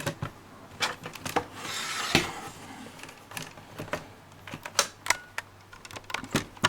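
Irregular plastic clicks and knocks of a laptop's casing and parts being handled during disassembly, with a brief rustle about two seconds in.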